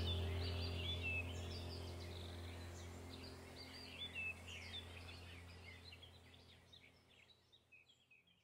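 Small birds chirping in quick, squiggly calls over a steady low hum, the whole background track fading out gradually to almost nothing by the end.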